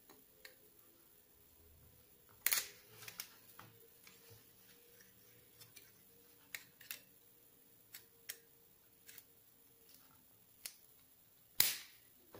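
Sharp clicks and knocks of metal parts being handled: a condenser microphone in its metal spider shock mount and an XLR cable plug fitted to its base. About a dozen scattered clicks, the two loudest about two and a half seconds in and near the end.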